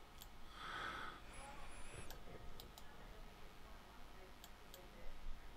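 Faint computer mouse clicks, a handful spaced irregularly, from a mouse being clicked to place pen-tool points and open a right-click menu.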